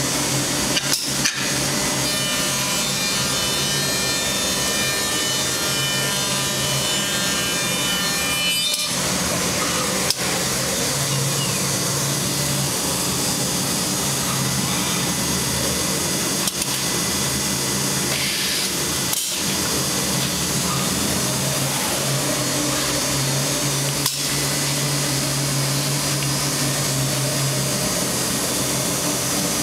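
HOMAG CNC working center routing wood: a steady, loud machining noise from the spindle and cutter, with a high whine for a stretch early on and a few brief breaks.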